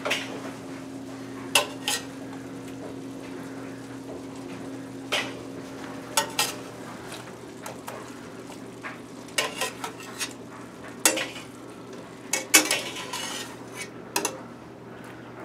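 Metal spatula scraping and clinking against a stainless steel frying pan in irregular strokes as hamburger patties are turned over, with the patties frying underneath.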